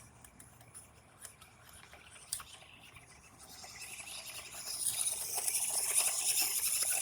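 Small electric RC car driving over little rocks: a few faint clicks, then from about three seconds in its motor whir and the rattle of its tyres on the stones swell steadily louder before cutting off sharply.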